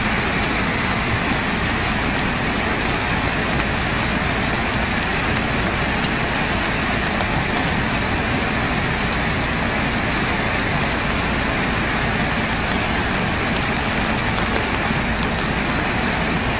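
Floodwater in a swollen river rushing past in a loud, steady rush that does not let up.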